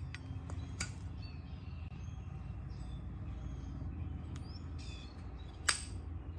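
Faint birds chirping over a steady low rumble, with a few sharp clicks, the loudest near the end.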